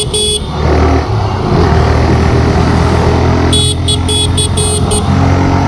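TVS Raider 125's single-cylinder engine running while riding, with wind rush. A vehicle horn sounds in quick short beeps just at the start and again in a run of about five beeps about three and a half seconds in.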